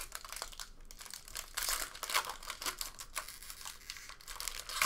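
Foil trading-card pack wrapper being torn open and crumpled by hand, crinkling in irregular bursts.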